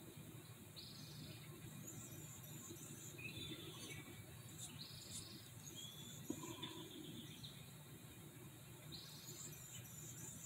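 Faint outdoor ambience: small birds chirp now and then, and a short high buzz repeats about every four seconds over a low steady hum.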